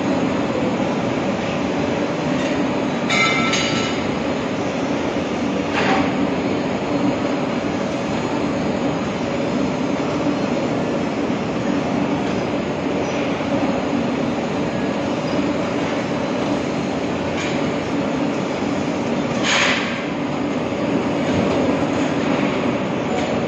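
A steady mechanical drone with a low hum, broken by a few brief clicks of small metal parts being handled: about three seconds in, about six seconds in, and again near the end.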